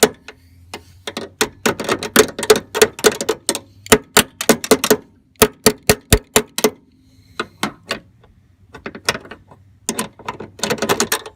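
Rapid hammer blows on a steel truck door hinge, sharp ringing metal-on-metal knocks about three or four a second, working the riveted factory hinge pin loose. The blows pause briefly about seven seconds in and come thick again near the end.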